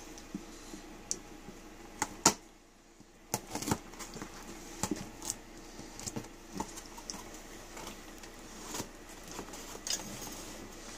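A box of freezer pops being handled and opened by hand: scattered taps, clicks and rustles, the sharpest pair about two seconds in.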